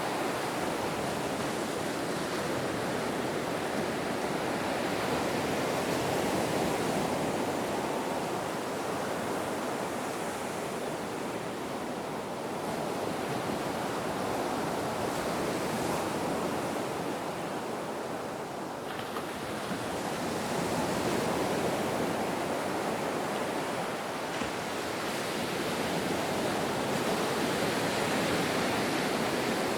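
Ocean waves: a continuous wash of surf that swells and eases slowly every several seconds.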